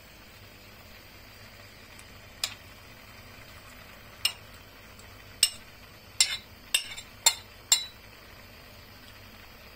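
A utensil knocking against a cooking pan about seven times, in sharp clinks that come closer together in the second half.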